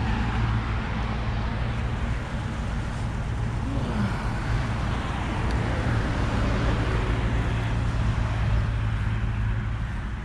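Road traffic noise: a steady rumble of cars going by on a busy road, one car swelling past about halfway through.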